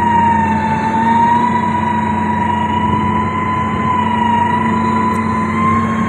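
Komatsu motor grader's heavy diesel engine running steadily under load, with a steady high whine on top that wavers slightly in pitch.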